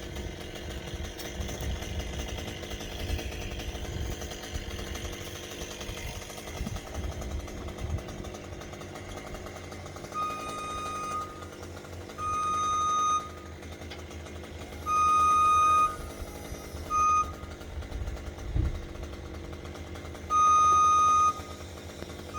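A vehicle or machine engine running steadily. From about ten seconds in, a reversing alarm sounds five times in steady single-pitch beeps of about a second each, one of them cut short, at uneven gaps.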